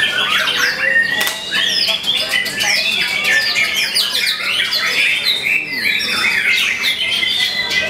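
Caged white-rumped shama (murai batu) singing a rapid, varied string of clear whistles, quick sweeping notes and harsh chattering.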